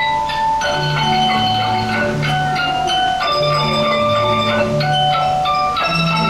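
Instrumental music from a live performance: a bright melody over held bass notes that change about every second, at a steady level.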